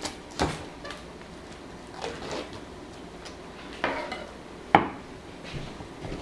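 Kitchenware clatter as raw chicken thighs are cut open: a knife knocking against a plate in a handful of separate sharp knocks, the loudest near the end.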